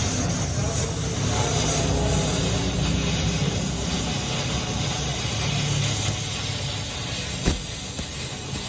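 Steady low vehicle rumble with a constant hiss, and one sharp click about seven and a half seconds in.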